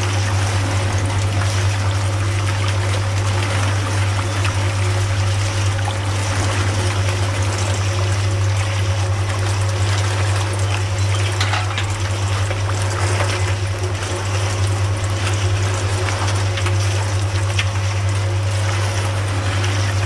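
Miniature sugarcane juice press running with a steady low hum, and juice trickling from its spout into a small metal pail.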